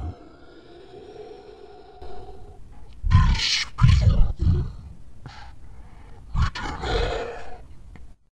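A man's very deep voice, slowed down and given echo, growling out German verse in several short bursts. The voice cuts off abruptly near the end.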